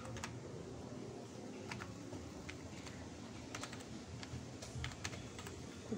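Typing on a computer keyboard: irregular single keystroke clicks as a word is typed out, over a faint steady low hum.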